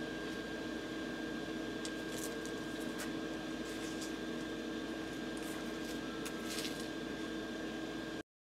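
Steady background hum with two held tones, a few faint ticks over it, cutting off suddenly to dead silence near the end.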